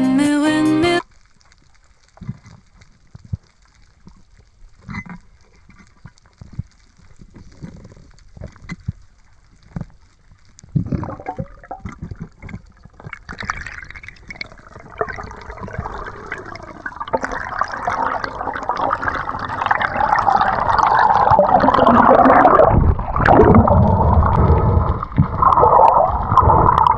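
Water sloshing and gurgling. It starts faint with scattered clicks and grows much louder and steadier in the second half.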